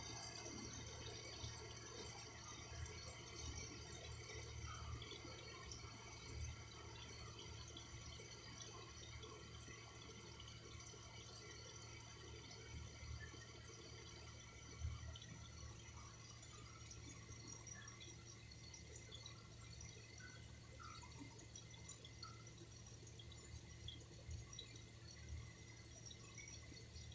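Faint water trickling and dripping, a steady wash with scattered small drips, easing slightly in level over the stretch.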